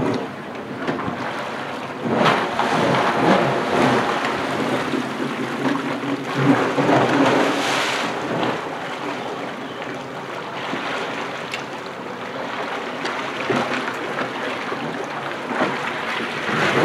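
Yamaha FX 160 jet ski running, its jet pump churning the pool water into waves and spray. The engine note steps up about two seconds in and then stays steady.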